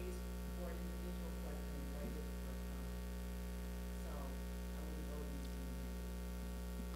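Steady electrical mains hum on the sound system, with faint off-microphone voices now and then.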